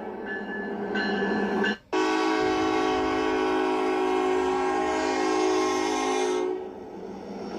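Diesel locomotive air horn sounding one long, steady blast that starts abruptly about two seconds in and fades out about six and a half seconds in. Before it, a shorter stretch of locomotive sound is cut off sharply.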